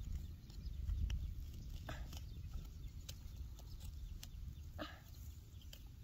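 A few short animal calls, about one every three seconds, over a steady low rumble of wind on the microphone, with a few faint clicks.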